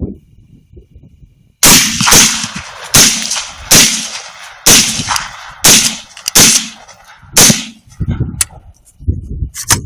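A rapid string of gunshots at coyotes: eight loud shots about a second apart, each ringing out briefly, then two fainter cracks near the end.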